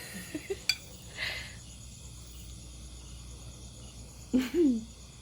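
Insects trilling steadily in the background, with a click about a second in, a short hiss just after it, and a brief vocal sound near the end.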